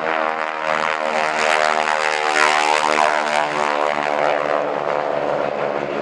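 Two Boeing Stearman biplanes flying past in formation, their radial engines and propellers making a steady, even drone that is loudest around the middle.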